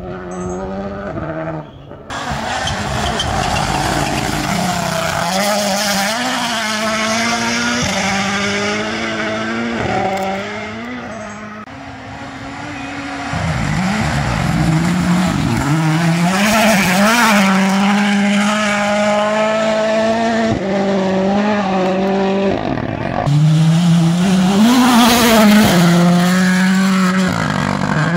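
Rally cars passing at speed on a dirt stage, engines revving hard, their pitch climbing and dropping again and again. Loudest near the end.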